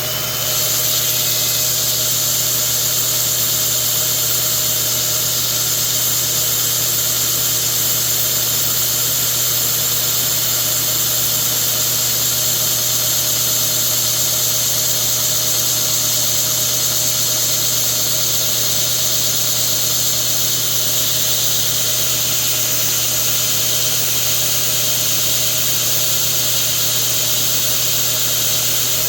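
Cordless drill running steadily on low speed, spinning a carburetor fuel-line nipple while it is ground down against an abrasive, giving a steady motor hum under a high grinding hiss that starts about half a second in.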